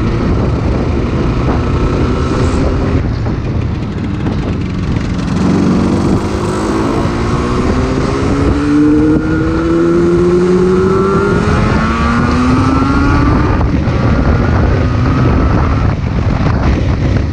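Yamaha RZ250's two-stroke parallel-twin engine running under way, its pitch climbing several times over as the bike accelerates, over a steady rush of riding wind.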